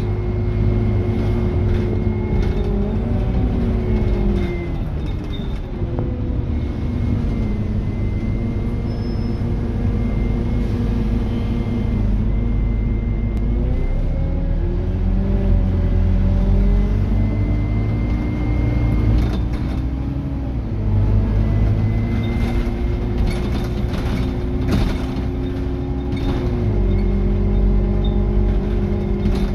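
Scania N230UD double-decker bus running, heard from the upper deck: the engine and driveline note drops in pitch a few seconds in, climbs again about halfway through, and drops once more near the end. A thin steady high whine and scattered light rattles sound throughout.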